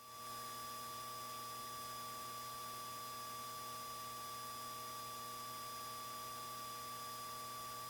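Steady hiss with a faint whine of several fixed tones, with no speech: the background noise of a cockpit intercom audio feed between transmissions.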